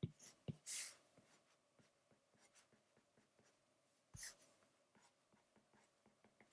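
Faint taps and quick strokes of a stylus on a tablet screen while grass blades are inked, with a short louder hiss just under a second in and a soft knock about four seconds in.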